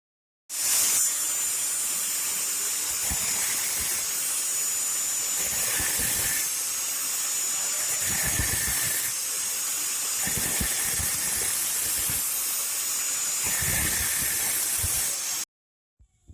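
Loud steady hissing with a faint high whistle over it and irregular low bumps beneath, starting abruptly about half a second in and cutting off suddenly near the end.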